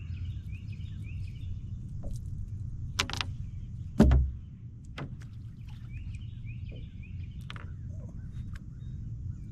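Birds chirping in quick repeated runs over a low steady rumble, with a few sharp knocks; the loudest is a heavy thump about four seconds in.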